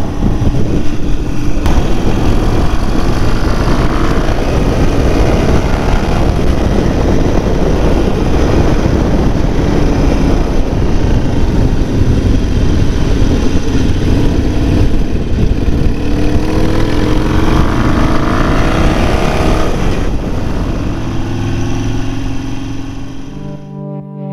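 Harley-Davidson Sportster V-twin engine pulling along the road at speed with steady wind rush. It rises in pitch a couple of times as the bike accelerates, then eases off near the end.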